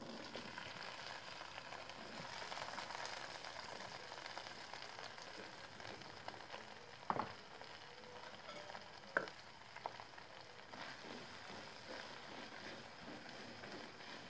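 Sliced bitter melon hitting hot oil in a wok and sizzling steadily as it fries, the sizzle starting suddenly as the slices go in. Two sharp knocks stand out partway through.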